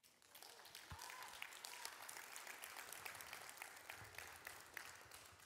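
Faint applause from a congregation, many hands clapping that swell just after the start and die away near the end.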